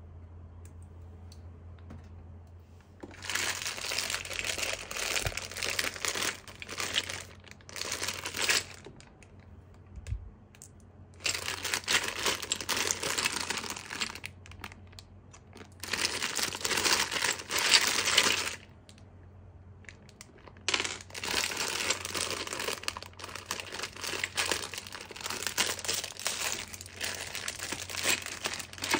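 Thin clear plastic bag crinkling as hands squeeze and unwrap the bags of backgammon checkers. The crinkling starts about three seconds in and comes in several bouts with short pauses between them.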